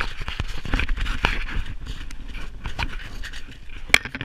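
Quick, irregular footsteps crunching on snow-covered lake ice, with heavy panting breath, as someone hurries on foot.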